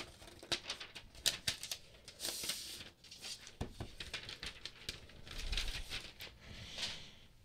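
A paper protective wrap being peeled off a tablet, with soft rustling and crinkling, then light clicks and taps as the tablets are handled and set down on their boxes.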